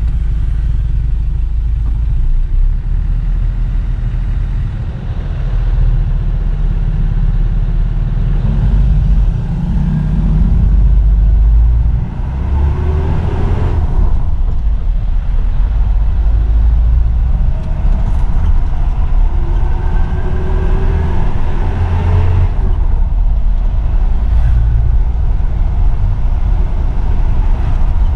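Isuzu Elf NKR 55 microbus's four-cylinder diesel engine heard from inside the cab, pulling away and accelerating; its pitch rises twice as it runs up through the gears, with a brief dip between.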